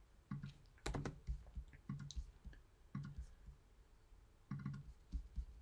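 Faint, scattered clicks of a computer mouse and keyboard, a dozen or so irregular short clicks and light taps.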